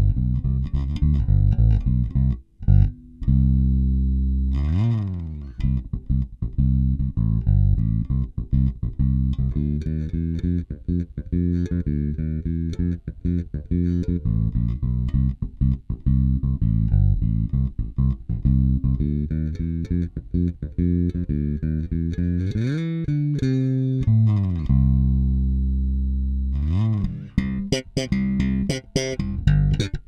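Squier Vintage Modified Jaguar Bass Special, an active bass with P-bass and Jazz-bass pickups, played fingerstyle: a bass line of quick plucked notes, a few held low notes, and two sweeping slides, one about five seconds in and another past twenty seconds. The playing gets busier and brighter near the end.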